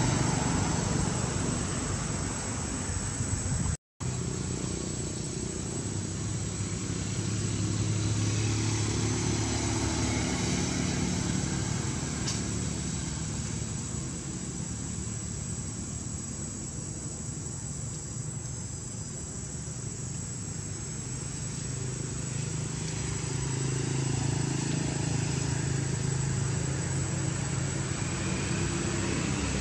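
Low engine hum of motor vehicles, swelling and fading twice as they pass, with a brief dropout of all sound about four seconds in.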